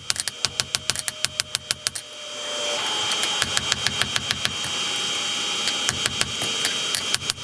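Rapid, evenly spaced hammer strikes on steel, about six a second. They stop about two seconds in, giving way to a steady rushing noise, and start again near the end.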